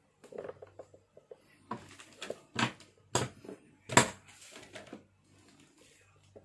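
Clicks and knocks of an air rifle fitted with a duralumin bipod being handled and set down on its bipod on a glass tabletop. The clicks and knocks come in a run, the loudest about four seconds in.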